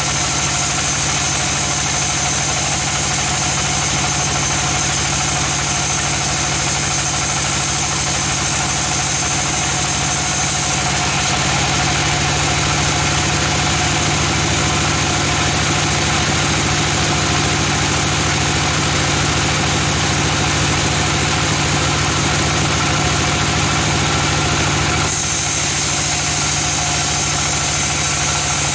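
Band sawmill machinery running steadily: a constant, loud mechanical drone. The high hiss drops away for about fourteen seconds in the middle, then returns.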